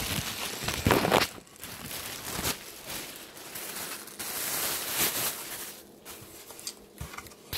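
Plastic bags and packing material crinkling and rustling as they are pulled out of a cardboard box, in irregular bursts, loudest about a second in.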